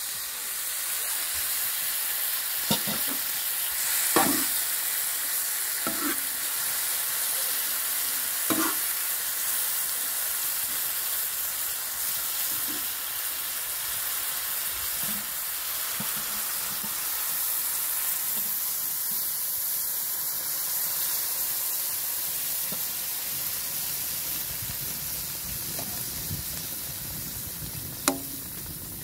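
Whole chicken and minced meat sizzling in oil on a hot round iron griddle, a steady frying hiss. A metal spoon knocks and scrapes against the griddle a few times in the first ten seconds and once near the end.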